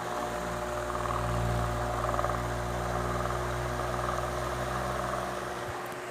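Arge Twister 50 cm wall fan running: a steady low motor hum under the rush of air from the blades. The low hum fades away near the end.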